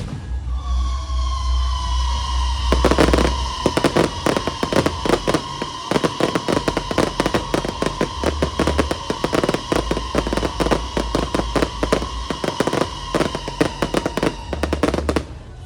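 Fireworks going off: a long run of rapid crackling bangs over a steady high whistle. Everything stops abruptly near the end.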